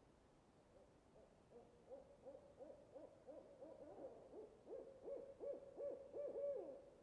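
An owl hooting: a run of short hoots, each slurring downward in pitch, that quickens and grows louder over about six seconds, then stops.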